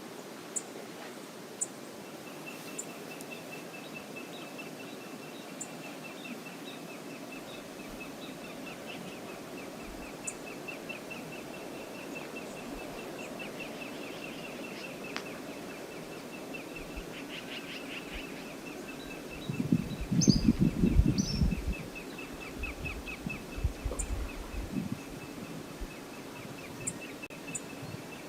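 Outdoor river-cam ambience: a steady background rush with a long, fast-pulsing high trill running through it. About twenty seconds in come a few seconds of loud low rumbling gusts, like wind buffeting the microphone.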